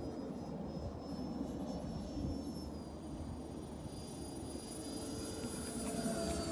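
Twin 64 mm electric ducted fans of a radio-controlled A-10 Thunderbolt II model jet whining in flight overhead. The steady high whine steps down in pitch a little under three seconds in, over a low rumble.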